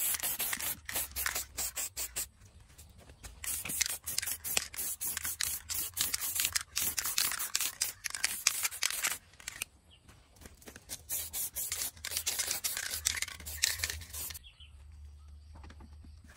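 Spray paint hissing out in many short bursts, with brief pauses about two and a half and ten seconds in, stopping about fourteen seconds in.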